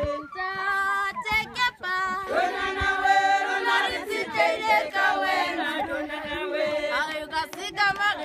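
A group of women singing together without accompaniment, in long held notes.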